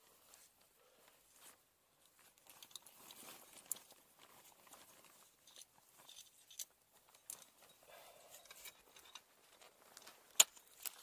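Faint rustling of clothing and small clinks of ice-climbing gear, broken by a few short, sharp clicks; the loudest comes near the end as an ice tool is handled.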